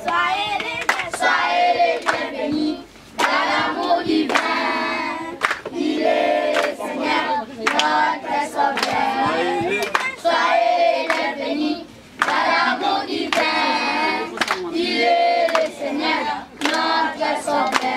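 A group of children singing a song together in short phrases, with sharp hand claps running through it.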